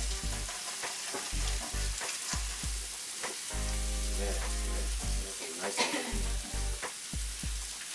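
Chicken sizzling in a hot grill skillet, a steady frying hiss, with a few short knocks and clinks of utensils in between.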